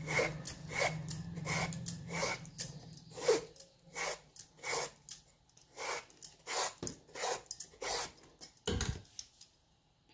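Vegetable peeler scraping strips of skin off a bottle gourd, in a run of short rasping strokes about one every 0.7 seconds. A heavier thump comes near the end.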